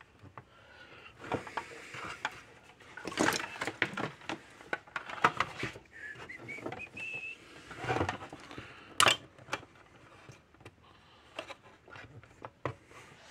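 Scattered clicks, taps and knocks of small parts and tools being handled while a fence-energizer transformer is fitted, with the sharpest knock about nine seconds in and a brief rising squeak between six and seven seconds.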